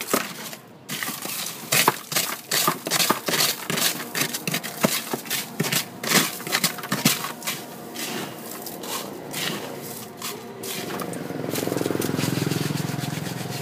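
Crushed ice scraping and crunching as a plastic cup is dug into a cooler box of ice to fill it, in a rapid, irregular run of sharp clicks and rattles. About eleven seconds in the clicking gives way to a steady low rumble.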